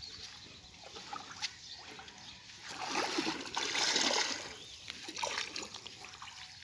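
Pond water splashing and trickling around a fishing net being worked by its rope in shallow water, loudest for about a second and a half in the middle.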